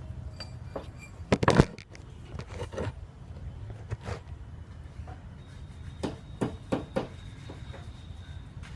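Scattered metallic clinks and knocks, like tools and metal parts being handled during clutch work. The loudest cluster comes about a second and a half in, with more knocks later and a few in quick succession near the end, over a low steady hum.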